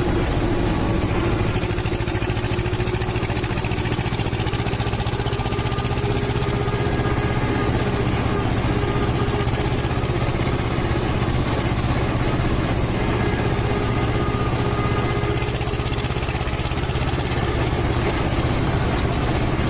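Canal waterfall's water pouring and rushing, a steady unbroken roar.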